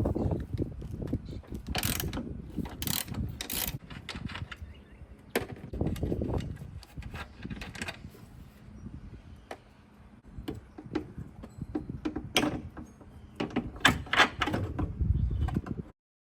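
Hand ratchet clicking in short runs as suspension bolts are turned, mixed with scattered metal clicks and clanks of tools and parts. The sound cuts off abruptly near the end.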